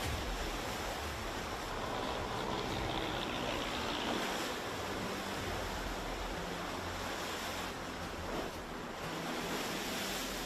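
Storm-driven surf breaking and washing over rocks and a seawall: a continuous rush of water that swells and eases, with wind.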